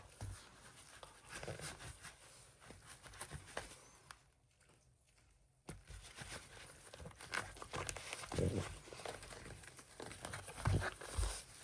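French bulldog playing with and chewing a plush toy: rustling, scuffing and a few low grunting noises. There is a short near-silent break about four seconds in.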